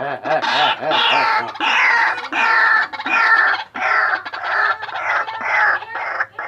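White-breasted waterhen (ruak-ruak) calling: a loud, harsh, nearly unbroken run of calls, each falling in pitch, repeated in quick succession.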